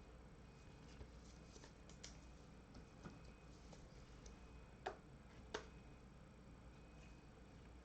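Near silence with faint scattered clicks from trading cards and packs being handled, and two sharper clicks close together about five seconds in.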